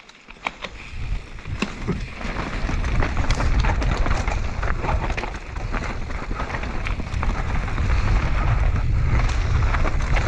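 Mountain bike rolling fast downhill on loose gravel and dirt: tyres crunching over the ground, the bike rattling and clicking over bumps, and a low wind rumble on the microphone, building up over the first couple of seconds as speed picks up.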